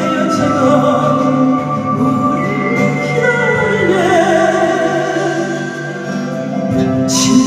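Music: a singer holding and bending long notes over steady sustained accompaniment.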